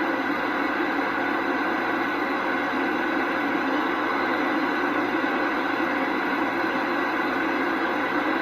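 Steady hiss and static from a CB radio receiver on an open channel.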